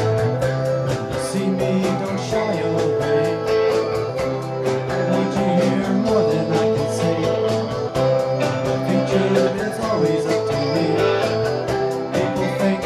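Recorded country-rock song: guitar over a steady beat, with a male singer.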